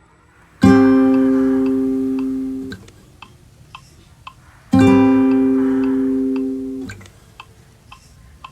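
Guitar chords strummed twice, each left to ring for about two seconds and then cut off, with faint taps between the chords.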